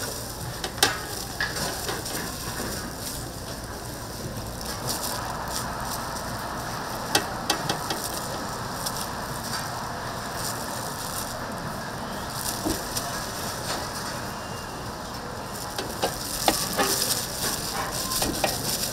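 Tteokgalbi (Korean short rib patties) sizzling steadily as they cook, with a few sharp clicks and knocks, loudest about a second in, around seven seconds in and near the end.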